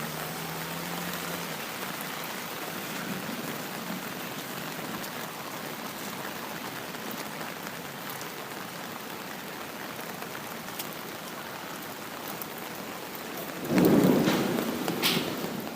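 Steady rain falling, with a sudden loud clap of thunder near the end that fades over about two seconds.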